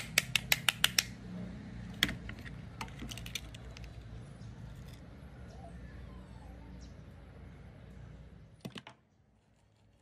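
A quick run of about seven sharp clicks in the first second, then scattered single clicks and taps: the plastic case and metal parts of a dirt-caked RC car transmitter being handled and taken apart with a screwdriver.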